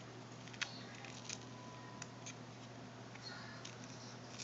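Faint handling sounds of a smartphone being taken apart by hand: a few scattered light clicks and taps of small parts, over a steady low hum.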